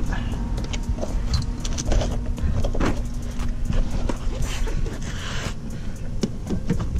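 Plastic rear diffuser being handled and pushed into place against a car's bumper cover: scattered clicks and knocks of plastic on plastic, over a steady low rumble.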